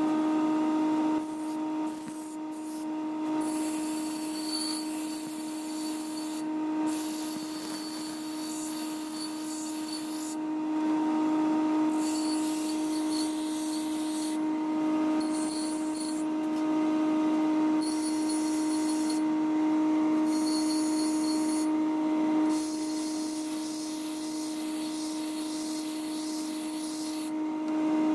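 Pedestal grinder's large stone wheel spinning with a steady hum while a steel knife blade is pressed against it in repeated passes, grinding with a hiss that stops and starts as the blade is lifted and set back on. The blade is being shaped on the wheel.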